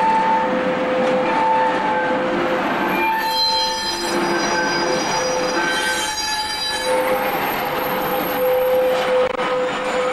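Irish Rail A class diesel locomotive and its bogie hopper wagons rolling slowly along quayside track. The wheels squeal in several steady tones that come and go, with higher squealing between about three and seven seconds in.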